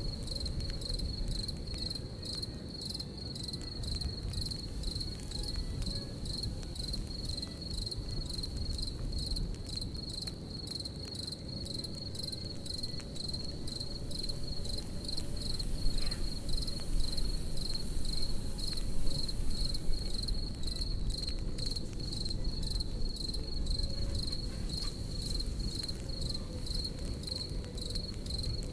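Crickets chirping in a steady, evenly pulsing high trill over the low rush of a campfire, with a few crackles and pops, loudest about halfway through.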